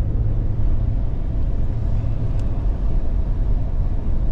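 Steady low rumble of road and engine noise inside the cabin of an older Toyota Sequoia driving at highway speed.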